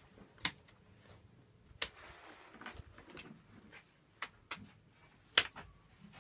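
Scattered sharp clicks and knocks, about seven over six seconds, irregularly spaced; the loudest comes about five seconds in, followed at once by a second one.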